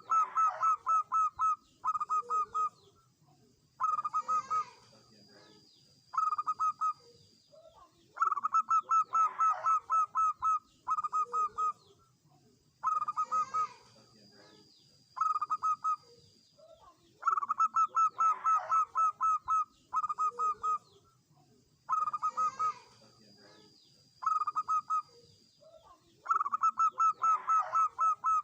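Zebra dove (perkutut) singing its staccato cooing song: quick runs of short, evenly spaced notes, a long run followed by shorter groups, repeated every couple of seconds with short pauses between.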